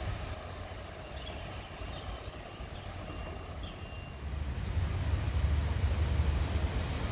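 Taiwan Railway diesel multiple-unit (DMU) express approaching from a distance: a low, steady rumble that gets clearly louder about four seconds in as the train draws nearer.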